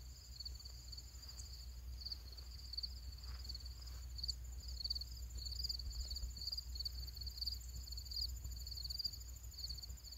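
Crickets chirping in quick pulsed trills throughout, with a steady high tone above them and a low rumble underneath.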